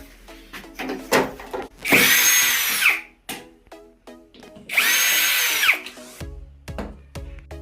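A power drill runs in two bursts of about a second each, its motor whine dropping in pitch as each burst stops, over background music.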